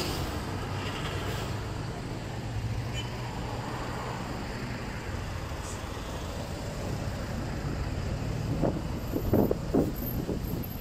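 City street traffic: a vehicle engine runs with a steady low hum over general road noise, and louder irregular sounds come in near the end.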